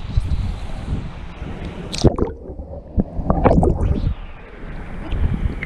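A handheld action camera plunges into a hatchery raceway with a splash about two seconds in. Its microphone then picks up muffled underwater gurgling and sloshing until it is lifted back out about four seconds in.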